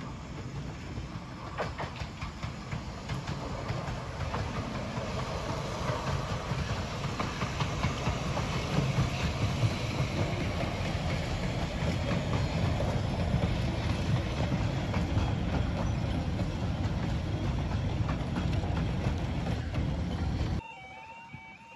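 15-inch-gauge steam train passing close by: a steady rumble of carriage wheels with repeated clicks over the rail joints, growing louder over the first several seconds. It cuts off suddenly near the end.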